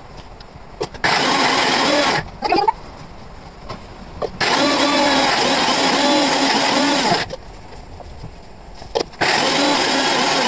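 Electric mixer grinder grinding cooked dal-and-jaggery obbattu filling (hoorna), run in bursts: about a second, then about three seconds, then again near the end, with short pauses between runs.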